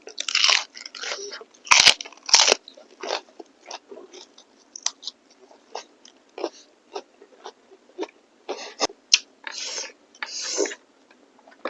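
Close-miked eating sounds: chewing with wet mouth clicks and crunchy bites, coming in irregular short bursts, the loudest about two seconds in.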